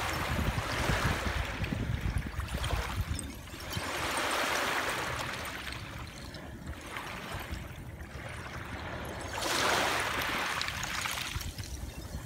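Small waves washing up over a shore of broken glass and draining back, the water hissing as it surges and recedes in several washes, the strongest near the end, with a scatter of small clicks among the shards.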